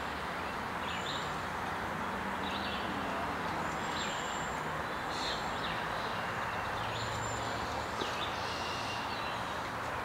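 Outdoor ambience: a steady background hiss and low hum, with short high bird chirps repeating about once a second.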